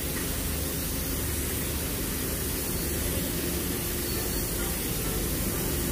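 Steady, even rushing noise with a few faint steady tones beneath it.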